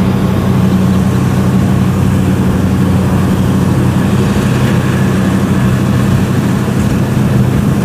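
Diesel engine of a Kubota DC70 combine harvester running steadily close by, a loud, even low hum.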